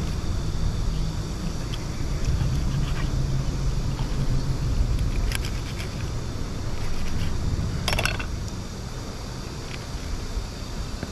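Knife cutting into a large fish on a rock, with a few sharp clicks of the blade, the loudest cluster about eight seconds in, over a steady low rumble.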